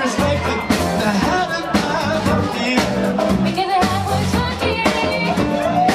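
Live band playing a song: singing over a drum kit and band with a steady beat.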